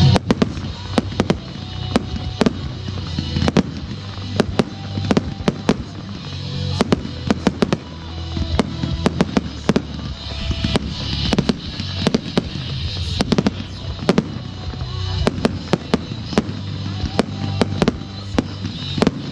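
Fireworks display: shells and effects firing and bursting in quick, irregular succession, sharp bangs several a second over a low rumble.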